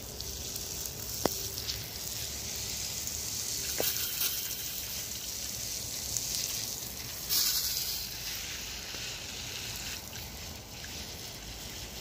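Water spraying from a garden hose's spray nozzle: a steady hiss, with two faint clicks in the first few seconds and a brief louder rush about seven seconds in.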